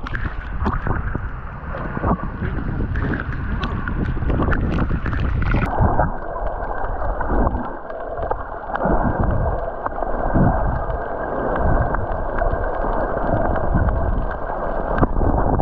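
Boat ride in heavy rain: wind rumbling on the microphone over splashing water and rain, with many small knocks and crackles. The sound changes abruptly about six seconds in, losing its upper part.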